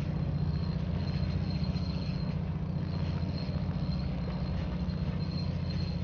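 Fishing boat's engine running steadily: a low, evenly pulsing drone with a faint thin high whine over it.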